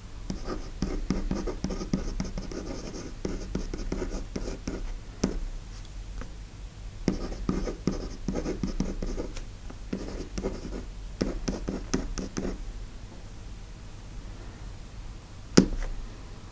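Pencil scratching across paper in quick runs of strokes, two spells of a few seconds each with a pause between, then a single sharp tap near the end.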